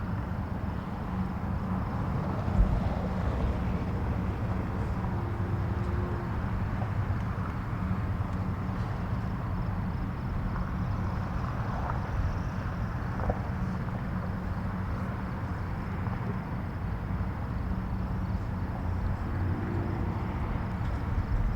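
Outdoor morning ambience: a steady low rumble with a faint hum, and a single brief thump about two and a half seconds in.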